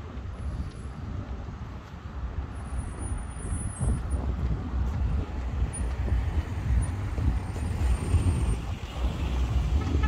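Road traffic on a busy street: a steady low rumble of passing vehicles that swells and fades.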